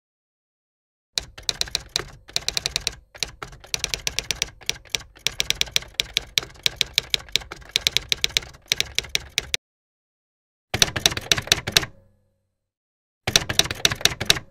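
Typewriter keystroke sound effect: rapid sharp clacks, about seven a second, in three runs separated by dead silence. The longest run fills most of the first ten seconds.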